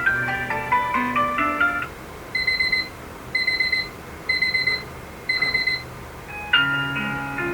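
Alarm clock sounding its alarm tones in turn: a short electronic tune of stepping notes, then four evenly spaced beeps about a second apart, then a different tune starting near the end.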